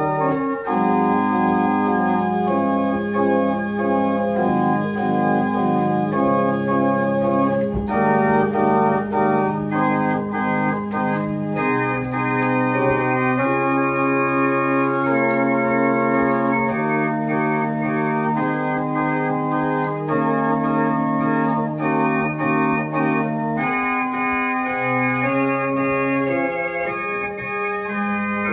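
Small wooden chamber organ played by hand: sustained chords over long-held bass notes, the harmony changing every second or few seconds.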